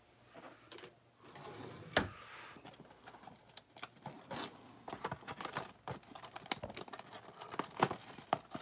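Clear plastic shrink-wrap on a cardboard trading-card blaster box being broken open and peeled off, with irregular crinkling and crackling and sharp ticks. One louder click comes about two seconds in.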